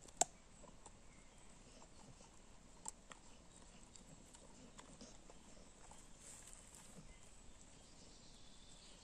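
An American Staffordshire terrier gnawing a stick: faint, scattered cracks and crunches of wood, with one sharper crack just after the start and another about three seconds in.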